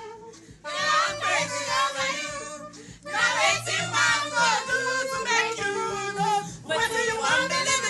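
Saxophone playing a melody in three phrases over a backing track with a steady bass line.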